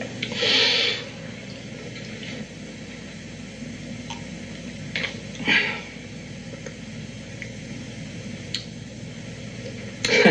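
A person sipping and gulping water from a glass, with two louder sips about half a second in and about five and a half seconds in, over the steady hiss and hum of an old TV soundtrack.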